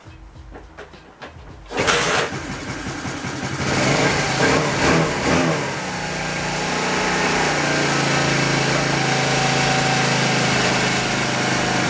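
Freshly installed Lifan 110cc single-cylinder four-stroke engine in a Honda C90 starting up about two seconds in, running unevenly at first and then settling into a steady idle about six seconds in. This is its first run after installation.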